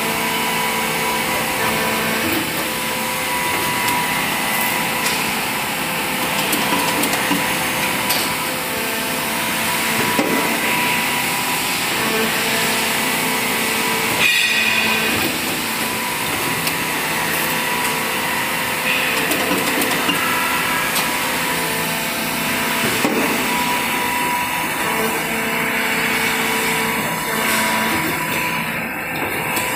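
Injection moulding machine running with its cable tie mould clamped shut: a steady machine hum and factory noise, with a few scattered sharp knocks.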